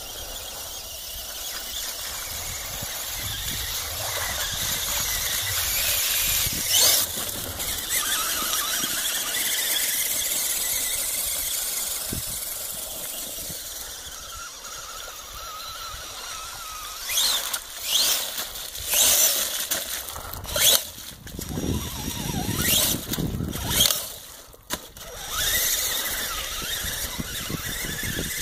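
RC Clodbuster monster truck's twin electric motors and gearboxes whining at a high pitch, rising and falling with the throttle. From about 17 seconds in, the whine comes in short surges with brief stops as the truck is driven through mud.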